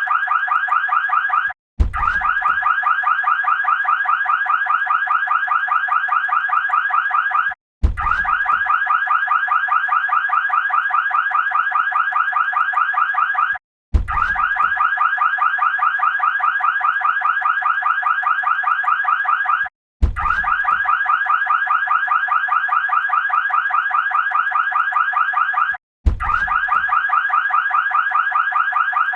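Ecto-1 siren running with a fast, steady warble. It comes in stretches of about six seconds, each cut by a brief gap and restarting with a low thump, as a repeating loop.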